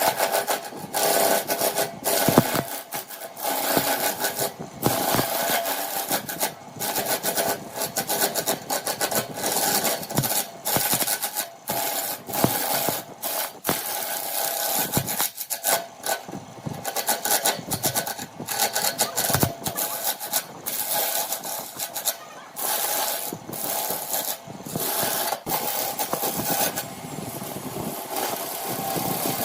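Wood lathe running while a turning tool cuts the spinning workpiece in short repeated passes, a scraping hiss that breaks off and starts again many times over the steady hum of the machine.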